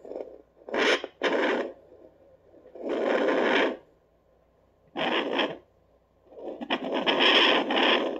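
Fetal doppler speaker giving out rough scraping noise as the probe is rubbed over a dog's belly: five uneven bursts, the longest near the end, with no steady heartbeat rhythm among them.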